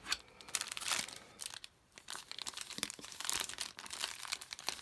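Crinkling and rustling of trading-card packaging as a blaster box is opened and its card packs are handled, a run of quick sharp crackles with a brief lull about two seconds in.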